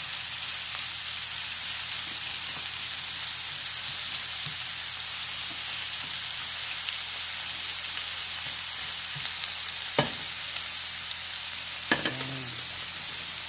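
Diced onion, garlic and ginger with sliced tomatoes sizzling steadily in oil in a frying pan as a spatula stirs them. Two sharp knocks near the end.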